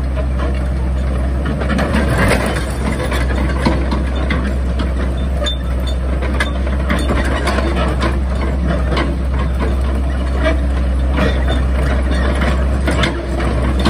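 Cat E120B crawler excavator's diesel engine running with a steady low drone, with scattered metallic clanks and knocks from the machine.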